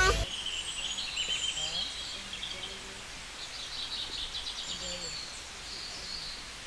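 Wild birds chirping in repeated short trills over a faint, steady outdoor hiss.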